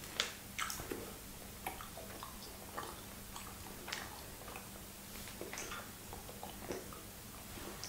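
Faint chewing and handling of dried salted blue whiting snacks: scattered small clicks and crackles, the loudest about a quarter of a second in, over a faint steady hum.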